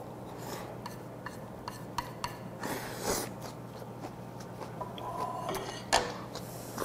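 Light clinks and taps of wooden chopsticks against small ceramic dishes during eating, with a louder knock about six seconds in as a dish is set down on the table.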